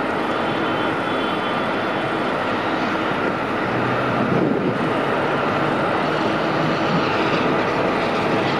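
Steady jet aircraft noise at an airport gate, with a faint steady hum running through it and a brief swell about four and a half seconds in.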